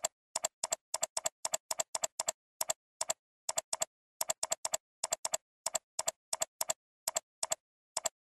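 A run of about twenty-five sharp computer clicks at an uneven pace of roughly three a second, each a quick double tick, with silence between them.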